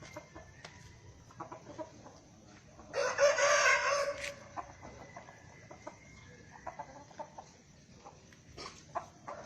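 A chicken gives one loud, harsh call lasting just over a second, about three seconds in. Faint clicks and rustles come before and after it.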